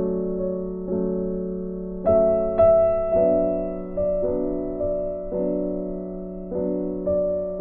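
Background piano music: soft sustained chords struck about once a second, each fading away before the next.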